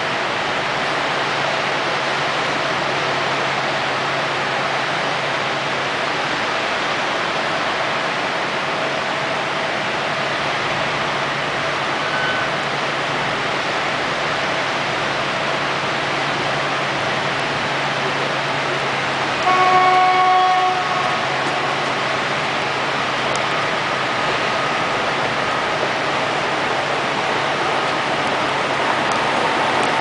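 Steady din of heavy machinery at an industrial construction site, with a low hum underneath. About two-thirds of the way through, a horn sounds once for about a second.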